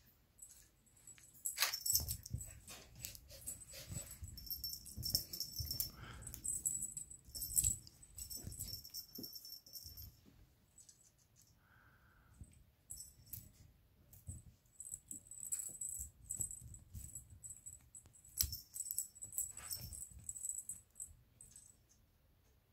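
Cat toys jingling and rattling as a kitten pounces on them and bats them around: bursts of high metallic jingling and clicking with soft thumps, in two busy spells with a quieter stretch in the middle.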